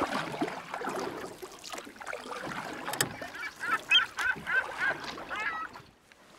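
A bird calling in a quick run of about eight short calls in the second half, over a busier mixed background at the start.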